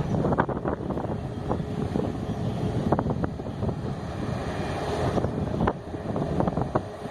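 Steady rushing noise of a landing aircraft, mixed with wind buffeting and many short knocks and rattles.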